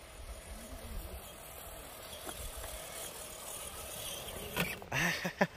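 FTX Kanyon RC crawler with a 15-turn motor driving across grass, its electric motor and gears whirring steadily, over a low rumble in the first couple of seconds. A few sharp knocks come near the end.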